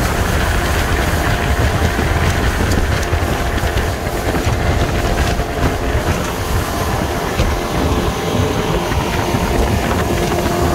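A small fishing boat's 60 hp tiller outboard motor running steadily at speed, with heavy wind buffeting the microphone.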